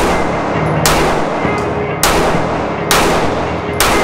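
Five pistol shots from a SIG P365 XL, spaced a little under a second apart, each ringing off the walls of an indoor concrete range. Background music plays underneath.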